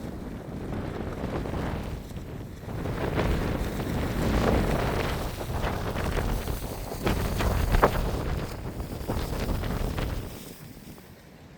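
Storm wind gusting and buffeting the microphone, dying down near the end.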